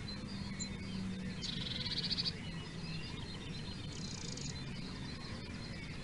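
House sparrows chirping, with two short, buzzy chattering bursts about one and a half seconds in and four seconds in, over a faint low steady hum.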